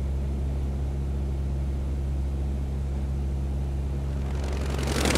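Steady low engine drone, the kind of an aircraft engine, with a rising whoosh that swells near the end.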